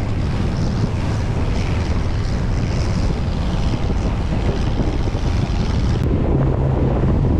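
Speedboat engines running at speed, with wind buffeting the microphone. About six seconds in the hiss eases and a steadier low engine hum comes through.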